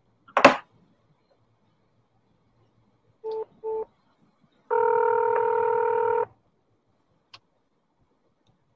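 Telephone line tones heard through the phone: two short beeps, then one ring of the ringback tone, a steady burring tone lasting about a second and a half, as the call rings through to be answered.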